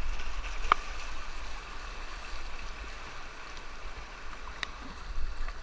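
Whitewater of a river rapid rushing steadily around a kayak, with a couple of brief knocks about a second in and near the end.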